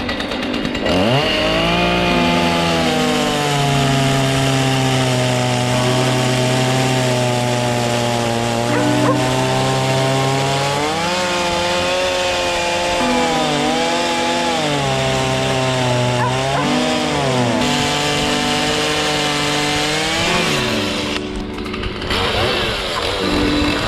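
Two-stroke chainsaw revving up about a second in, then running at high revs while cutting into a thick larch slab, its pitch sagging and recovering several times as the chain bites into the wood. The engine note drops briefly near the end before revving up again.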